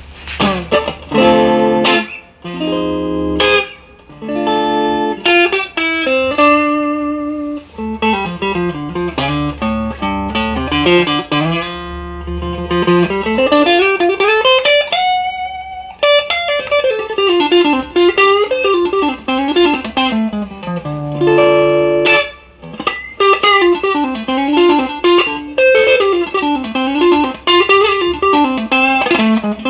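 Knaggs Choptank electric guitar with an ash body and maple neck, played solo through an amplifier. Separate picked notes at first, then fast single-note lead runs, with a long rising run about halfway through.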